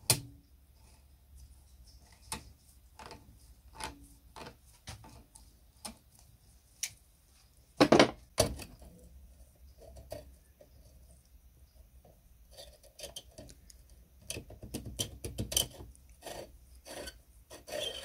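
Door-closer parts being handled: a rusty steel rod and coil spring turned and knocked against the wooden bench, with scattered metal clicks. There is a loud double knock about eight seconds in and a quick run of clicks near the end.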